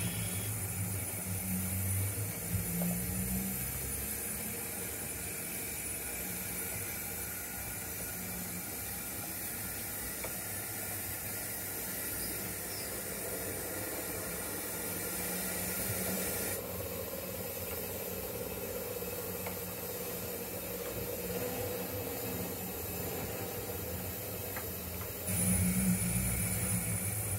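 O gauge model steam train pulling out of the station: a steady hiss with a low rolling rumble from the wheels on the track, which fades after the first few seconds and comes back louder near the end.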